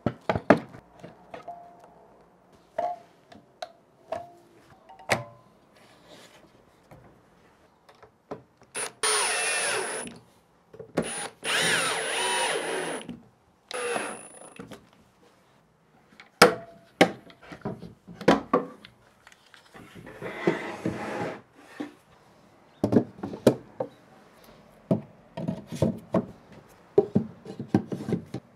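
Workshop assembly sounds: sharp clicks and knocks from one-handed bar clamps being tightened, then a cordless drill running in several short bursts with a thin high whine. Near the end comes a quick run of clicks and knocks as cordless tool batteries are slid onto wooden rails and snap into place.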